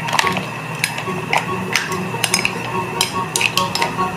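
Metal ladle stirring shrimp and mussels in a metal pan: irregular clinks and scrapes of metal and shell against the pan, over background music.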